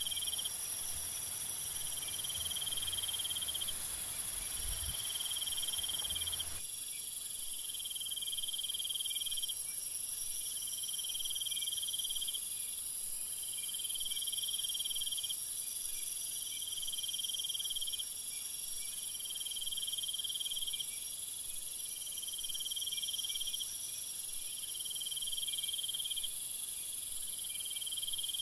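Crickets chirping: a steady very high trill, with a lower pulsing trill about a second long repeating every second or two.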